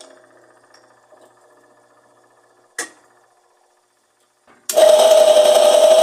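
A single click, then a washing machine starts running with a sudden loud, steady noise carrying a strong constant whine. This is the strange wash and spin noise that the repairer puts down to the machine's motor.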